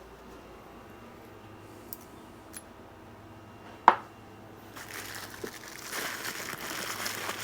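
A few light clicks and one sharp click about four seconds in, then packaging crinkling and rustling from about five seconds on, growing louder, as the new freewheel is handled out of its wrapping.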